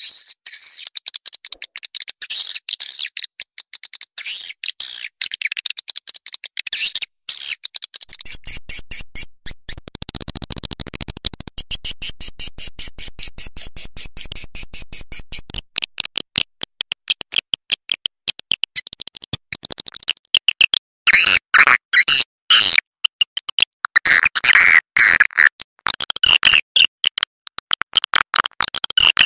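Swiftlet call recording, the lure sound played to draw edible-nest swiftlets into a nest house: fast, unbroken trains of high chirps and twitters, many per second. A lower, buzzier stretch comes in the middle, and the chirps grow louder and brighter in the last third.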